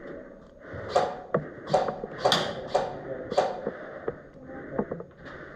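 A run of about five sharp clacks roughly half a second apart, followed by two fainter ones.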